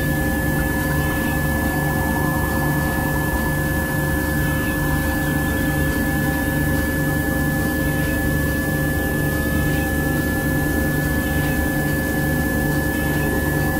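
Binaural-beat brainwave-entrainment track: several held electronic tones layered over a steady bed of hiss, with a low tone pulsing about twice a second and a faint tone slowly rising in pitch in the second half.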